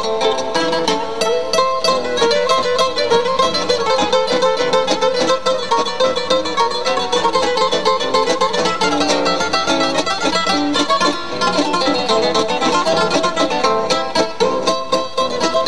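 A trio of acoustic guitars playing an Argentine vals, with many quick plucked notes.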